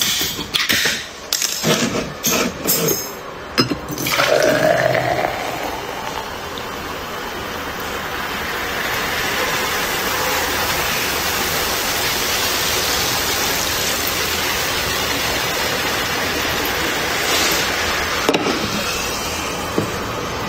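Aluminium soda cans clicking as their ring-pulls are worked open. About four seconds in, two cans pour into a tall glass with a short rising gurgle, then the foaming carbonated soda fizzes with a long, steady hiss.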